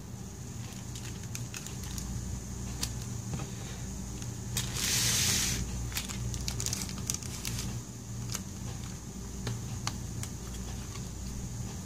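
Small clicks, taps and scrapes of fingers and a plastic pry tool on a MacBook Air's opened logic board and connectors, over a steady low hum. A short hiss comes about five seconds in and is the loudest sound.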